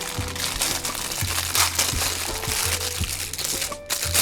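Background music with held notes over a steady low bass, with plastic packaging crinkling and rustling in short bursts throughout.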